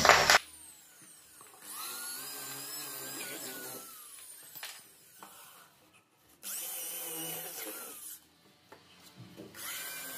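Corded electric hand drill drilling screw holes in a laminated plywood cabinet frame. A loud run cuts off just after the start, followed by three shorter, quieter runs, each a whine that rises as the motor spins up and falls as it winds down.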